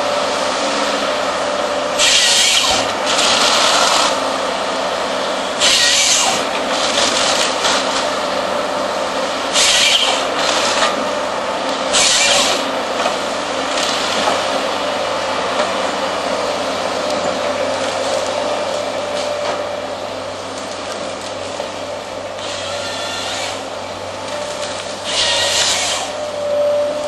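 AFM 58 Husky harvester head on a Volvo excavator working timber, over the excavator's engine and hydraulics running steadily with a faint high tone. Several short, loud, harsh bursts break in, a few seconds apart, as the head handles the wood.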